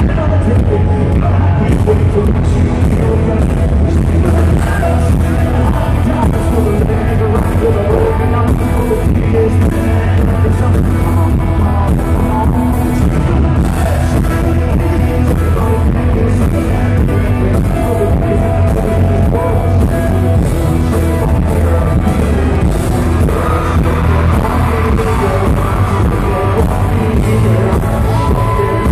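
Live country-rock band playing loud, with a male singer on a microphone, recorded on a phone from the crowd. The sound is poor and boomy, with heavy bass and a steady beat.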